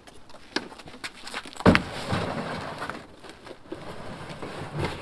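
Loaded Otter Medium Pro plastic ice-fishing sled being pushed into a pickup truck bed: a heavy thump a little under two seconds in, then about a second of scraping, with smaller knocks and rattles around it.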